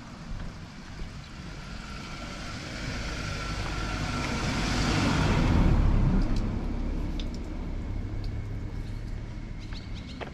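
A motor vehicle passing close by: engine and tyre noise build over several seconds, peak just past the middle and then fade, leaving a low steady hum.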